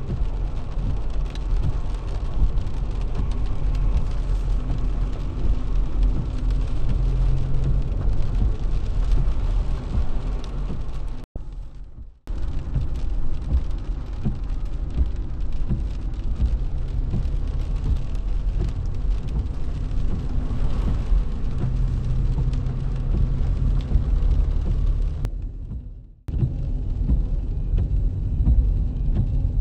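Inside a moving car on a wet road: steady engine and tyre rumble with rain on the car. The sound drops out for about a second twice.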